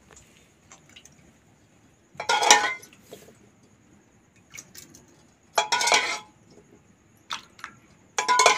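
Metal ladle scraping and clanking against an aluminium pot and stainless-steel bowls as dal is ladled out: three louder clattering bursts about three seconds apart, with light clinks between.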